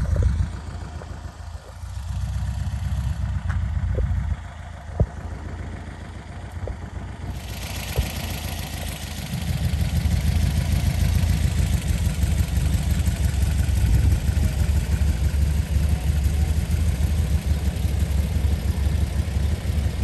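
Air-cooled Volkswagen bus engines idling with a low, uneven rumble; it fades for a few seconds in the middle and comes back stronger from about halfway through. A few sharp knocks stand out, the loudest about five seconds in.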